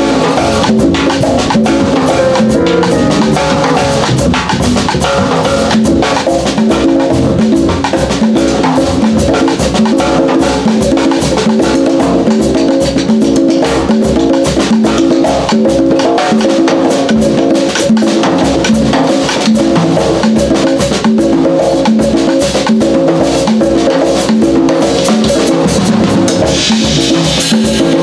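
Live jazz band playing a repeating vamp: drum kit and hand drums over a riff that the bass and keyboard play again and again.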